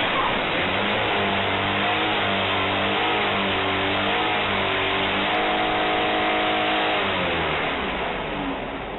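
Car engine revving hard, its pitch wavering and then held high, before winding down about a second before the end. A dense rushing noise runs underneath.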